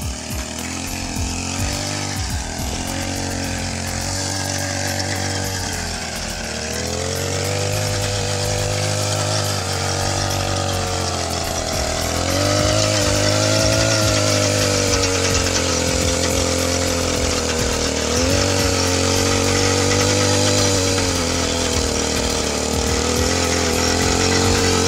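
A small engine running continuously, its speed drifting up and down and rising a little about halfway through.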